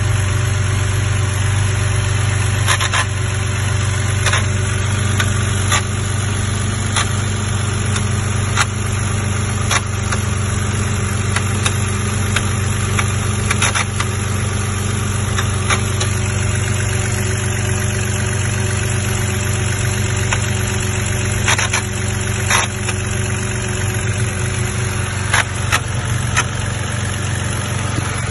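Car engine idling steadily, with sharp irregular clicks about one to two seconds apart: an unexplained engine noise whose source has not been found.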